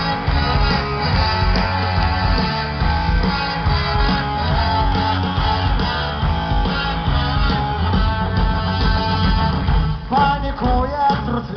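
Live rock band playing, electric guitars strumming over bass and drums with a steady beat.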